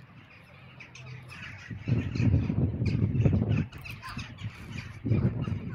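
Crows cawing, with bursts of loud, low rumbling noise about two seconds in and again near the end.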